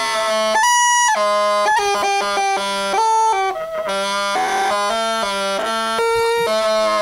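Junior Playable Bagpipes, a toy set of bagpipes, being played. The chanter gives a reedy melody of notes that change about every half second, over a steady lower note.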